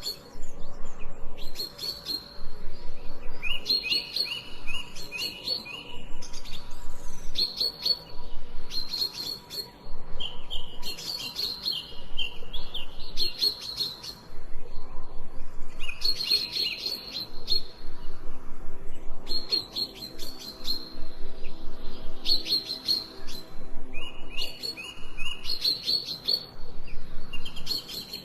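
Small birds chirping: bursts of quick, high chirps repeating about every two seconds.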